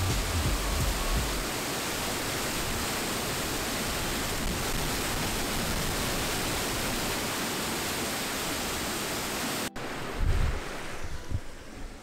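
Small moorland waterfall on granite ledges: a steady, full rush of falling water. Near the end the rush cuts off abruptly and gives way to a quieter low rumble and a thump of wind on the microphone.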